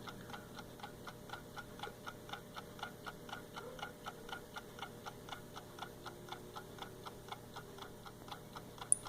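Hand-wound AcuRite mechanical clock ticking steadily, about four ticks a second. A single brief sharp click near the end.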